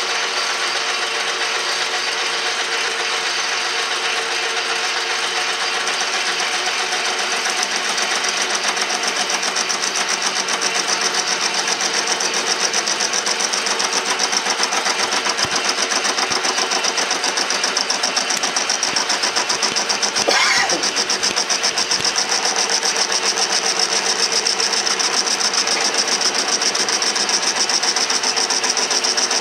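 10-inch Logan metal lathe running under power feed, its high-speed steel tool bit taking a 20-thou roughing cut through weld buildup on a spinning PTO gear part. A steady mechanical whirr from the lathe's drive, with cutting hiss and a fast, regular pulse.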